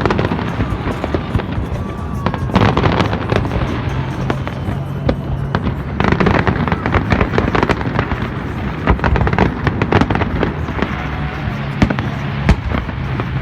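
Fireworks display: a dense, continuous run of bangs and crackling with no pauses, over music.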